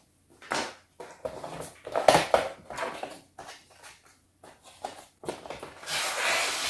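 A cardboard toy box being handled and opened: a run of short rustles and scrapes as the end flap is worked open, then a longer, louder scrape near the end as the inner tray slides out of the cardboard sleeve.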